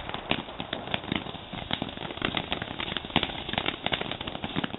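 Weco ground fountain firework burning: a steady hiss of spraying sparks with many irregular sharp crackling pops from its crackle stars.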